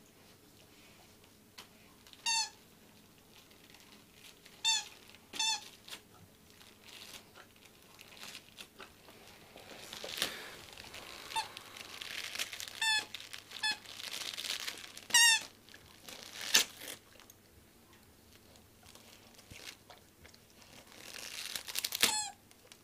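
A dog working at a gift-wrapped present with nose and paws: wrapping paper crinkling and tearing, with about eight short high squeaks scattered through.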